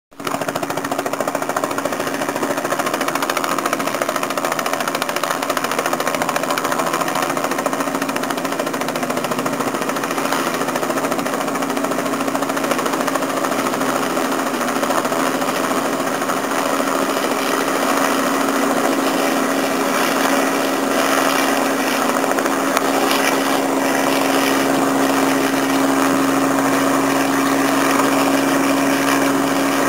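Robinson R44 helicopter coming in to land, its two-bladed main rotor and piston engine running with a steady hum that grows a little louder in the second half as it draws closer.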